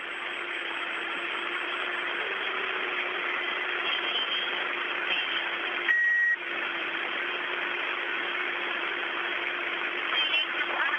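Steady hiss of the air-to-ground radio link from the Soyuz cabin, with a constant low hum under it. A short electronic beep sounds about six seconds in.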